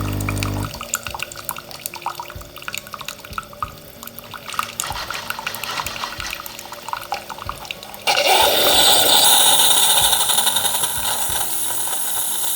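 Bosch Tassimo coffee machine dispensing hot water: the pump's hum stops under a second in, leaving water dripping and trickling into the cup. About eight seconds in a loud hiss of steam and air bursts out and carries on, the machine blowing out the capsule at the end of its brewing cycle.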